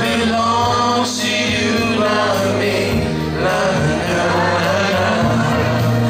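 Several men singing together into microphones over amplified backing music with a steady bass line.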